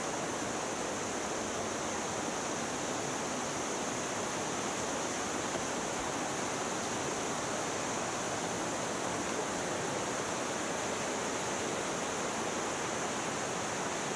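Canyon stream rushing over rocks and a small waterfall: a steady, even rush of water, with a constant high hiss on top.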